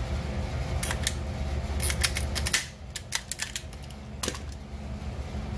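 Plastic cable tie being fed through and pulled tight on the ATV's light wiring, its ratchet giving a series of sharp clicks, with a quick run of clicks a little past the middle. A steady low hum underneath.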